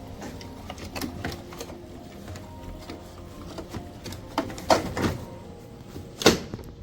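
Sharp clicks and knocks of hard plastic parts being handled as a washing machine timer is fitted back into its control panel. The loudest knocks come about four and a half to five seconds in, with one more near the end.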